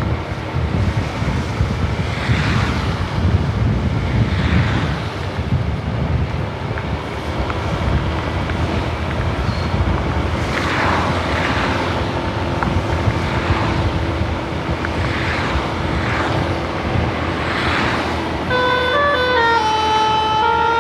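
Road traffic rumbling, with vehicles passing one after another on a wet road, each a rushing swell of tyre noise. Near the end a bus's telolet basuri musical horn starts playing a tune of stepped notes.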